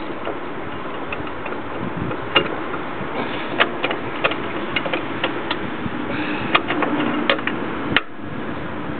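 Irregular metallic clicks and knocks of hand tools working on the front axle's ball joints, over a steady background hiss; the background drops off abruptly about eight seconds in.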